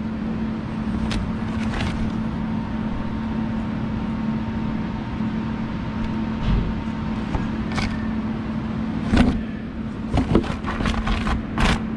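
Steady low machine hum, with a few scattered light clicks and knocks, a small cluster of them near the end.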